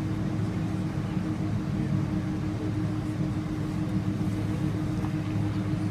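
Steady cabin noise of a Boeing 777-300 taxiing: a low rumble with a constant hum.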